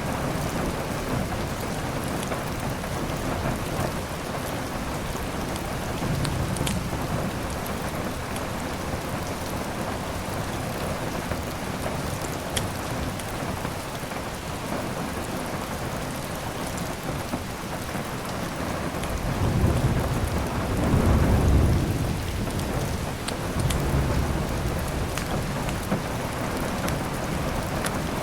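Steady rain with a few sharp crackles from a fireplace, and thunder rumbling low about two-thirds of the way through, followed by a smaller rumble a few seconds later.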